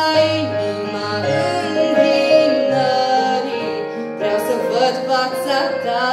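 A woman singing a slow Romanian Christian worship song into a microphone, accompanied by chords on a digital piano.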